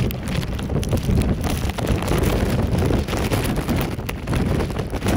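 Wind buffeting the microphone over the low rumble of a Boeing 747's jet engines.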